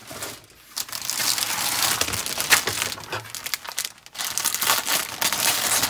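Clear plastic bags holding model-kit sprues crinkling as they are handled and shifted, starting about a second in with a short break about four seconds in.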